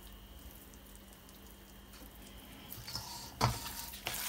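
Raw rump steak being squeezed and rubbed with seasoning by hand in a stainless steel bowl: soft, irregular wet squelches and slaps begin about three seconds in, one of them louder. Before that there is only a faint steady hum.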